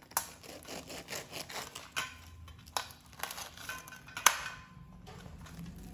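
Knife cutting through a crisp, deep-fried bread pakoda: a run of crunching crackles, with one sharp click about four seconds in.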